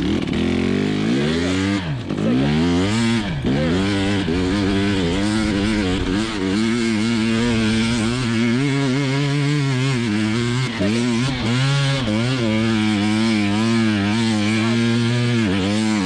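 KTM 300xc TPI single-cylinder two-stroke engine running under throttle, its revs repeatedly dropping and climbing again, with a few sharp dips early on and quick small rises and falls after that.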